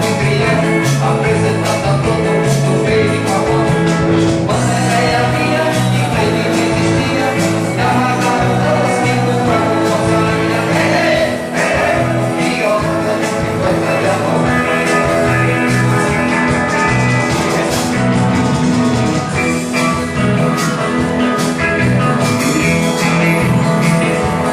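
Band playing 1960s-style rock and roll on guitar, bass and drums, with a steady beat.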